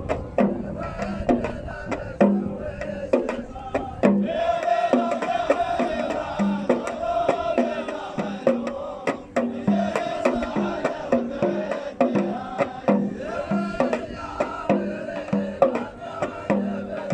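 Omani razfa: a group of men chanting together over repeated drum beats, the chant growing fuller about four seconds in.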